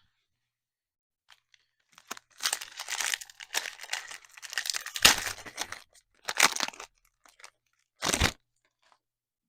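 Plastic wrapper of a trading-card pack being torn open and crinkled, in a run of rustling tears from about two seconds in, loudest midway, with one more short crackle near the end.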